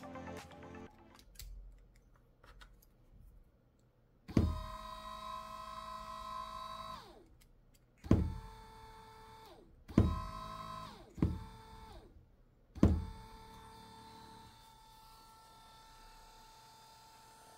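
12V 50W car windshield wiper gear motor switched on and off in short runs. Each start comes with a sharp click and a steady electric whine. Each stop lets the whine fall in pitch as the motor spins down. It starts several times, and the last run keeps going, quieter after a few seconds.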